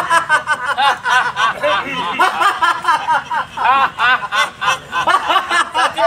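High-pitched human laughter: a long run of short, quick laughs, several a second.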